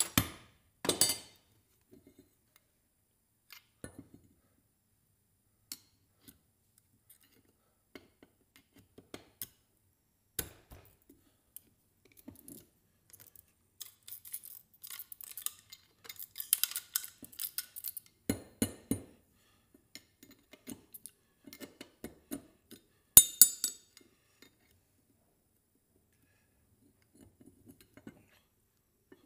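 Hand tools and small metal and plastic parts clicking, clinking and scraping as an item is taken apart by hand. The sounds come in scattered bursts, with a denser stretch of scraping about midway and one sharp click, the loudest, about 23 seconds in.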